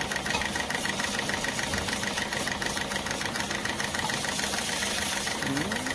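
Motorcycle engine idling, a steady rapid pulse of about ten beats a second.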